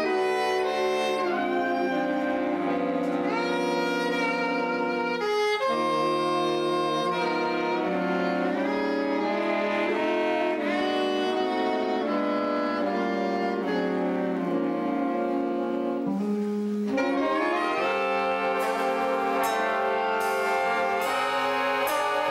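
Jazz big band's saxophone and brass sections playing held, shifting chords, with pitches sliding into and out of the chords at a few points. Sharp percussion strikes come in near the end.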